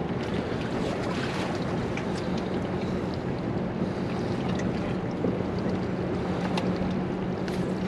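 Wind on the microphone and water lapping around a small boat on open water. A steady low hum runs underneath, and there are a few faint clicks.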